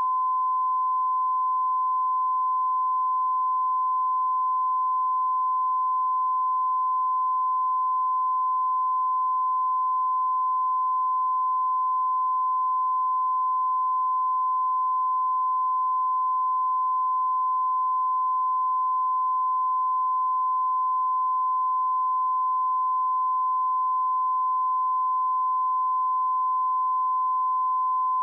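A pure 1023 Hz sine-wave test tone, one steady unbroken pitch at constant loudness, used to check speakers or headphones.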